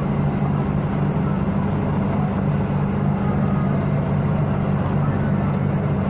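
Steady low drone of a large ship's engine running at a ferry port: a constant deep hum with an even rushing noise over it, unchanging throughout.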